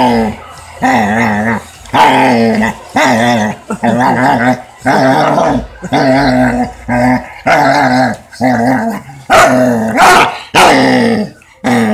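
A Weimaraner growling and grumbling in play: a string of drawn-out calls with a wavering pitch, about one a second, growing louder near the end.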